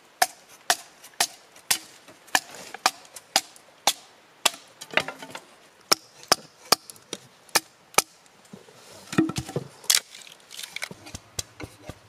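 An axe chopping wood: a steady run of sharp strikes, about two a second.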